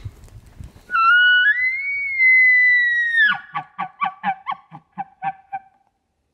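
Bull elk bugle: a high whistle that rises and holds for about two seconds, then breaks sharply downward into about ten short grunting chuckles, roughly four a second.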